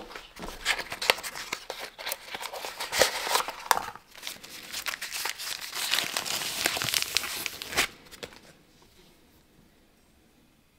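Old brown wrapping paper crinkling and rustling as it is unwrapped by hand, with many small sharp clicks. It stops suddenly about eight seconds in.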